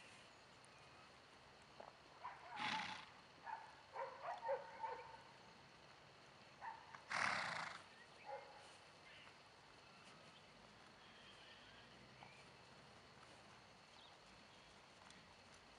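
Pony snorting twice, about three seconds in and again, louder, about seven seconds in, with a few faint short sounds between; otherwise only a low steady background.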